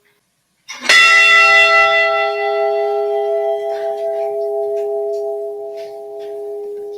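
The Edmund Fitzgerald's bronze ship's bell is struck once, about a second in, and rings on with a clear, lingering tone that slowly fades. It is tolled once in memory of a lost crewman.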